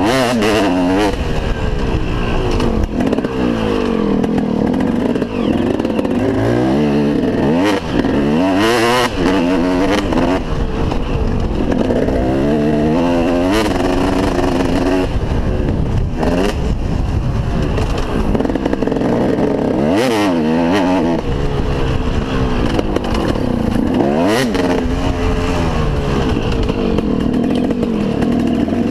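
2003 KTM 250 SX two-stroke motocross engine, heard from the rider's helmet, revving up and falling back again and again as the rider accelerates, shifts and rolls off the throttle around a dirt track. Wind rush and the clatter of the bike over bumps run underneath.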